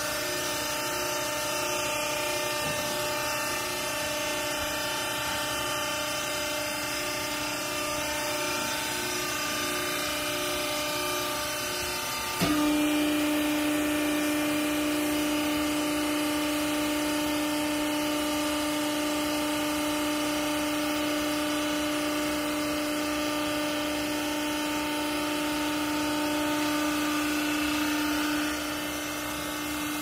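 Hydraulic power unit of a vertical clothing baler running with a steady hum. About twelve seconds in it steps up to a louder, steadier tone, the pump working under load as the press plate is driven down onto the clothes, and it drops back near the end.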